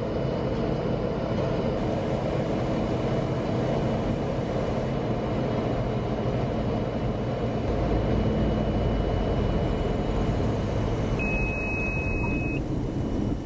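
Cirrus SR20's freshly overhauled 200-horsepower six-cylinder engine and propeller droning steadily, heard from inside the cabin during the landing. A low rumble grows about halfway through as the wheels roll along the runway.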